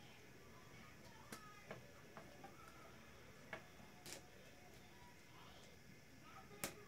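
Interlocking plastic building blocks clicking and clacking as they are picked from a pile and snapped together: a handful of sharp, scattered clicks over a quiet background, the loudest one near the end.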